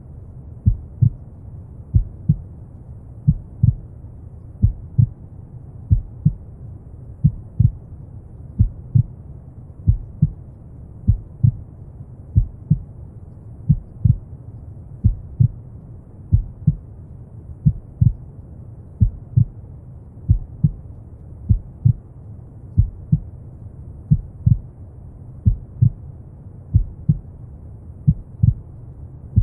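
Slow heartbeat, a regular double thump (lub-dub) a little over a second apart, over a steady brown noise.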